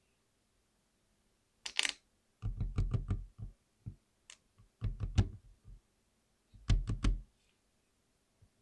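Mechanical keyboard with lubed Cherry MX Speed switches being typed on: after a brief rattle about two seconds in, three short runs of rapid, low-pitched keystrokes.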